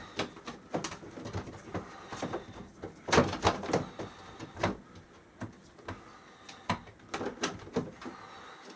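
Irregular knocks, clicks and rattles of hands working at a window air conditioner's metal brace and frame, with a burst of louder clattering about three seconds in.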